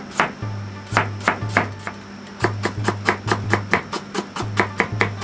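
Kitchen knife chopping carrot into thin strips on a plastic cutting board: quick, regular knife strokes, about four a second, with a short pause about two seconds in. Background music plays underneath.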